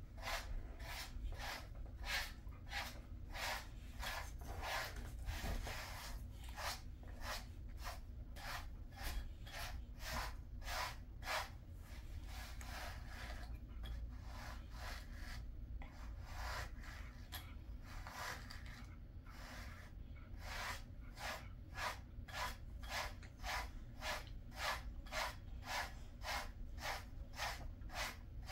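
A pet brush raked through a Jindo dog's coat in quick repeated strokes, about two a second, each a short scratchy rasp.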